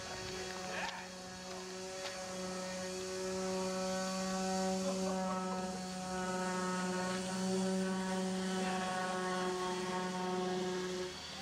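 Engine of a specialized yard truck running at a steady speed as it tows a trailer loaded with a large sailboat, a steady drone that grows a little louder in the middle.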